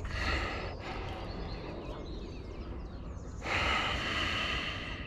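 Fishing reel's drag buzzing as a hooked fish takes line: a short burst at the start and a longer, louder run of about a second and a half near the end.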